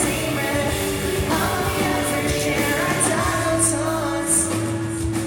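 A pop-punk band playing live, with a singer's voice over the band, cymbal hits and sustained notes.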